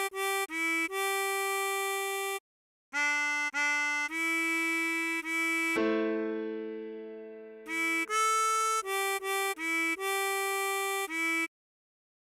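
Tremolo harmonica playing a melody of short, separate notes with brief pauses. About six seconds in, a chord sounds suddenly and fades over about two seconds, then the notes resume.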